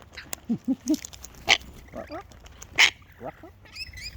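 Wild birds calling while feeding: three short low falling calls, then two loud harsh screeches, then quick high chirps near the end.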